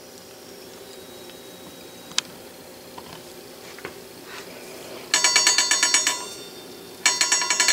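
An electric bell rings in two loud bursts of about a second each, beginning about five seconds in, its clapper striking very rapidly. Before that there is only a faint hum and a couple of small ticks.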